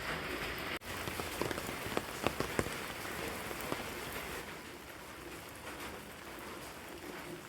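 Steady rain falling on a surface, with a few sharper drop ticks standing out between about one and four seconds in. A brief break in the sound comes under a second in, and the rain is a little quieter in the second half.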